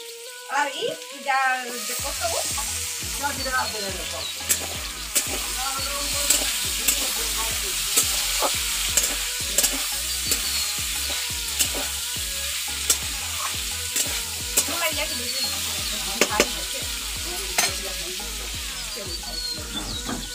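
Diced potato, tomato and greens sizzling in hot oil in a steel kadai, stirred with a metal spatula that scrapes and clinks against the pan every second or so. The sizzle starts about two seconds in and then holds steady.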